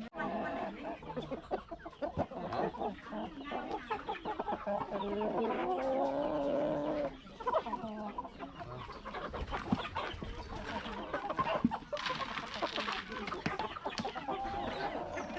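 A flock of chickens clucking and calling, with one long drawn-out call about five seconds in.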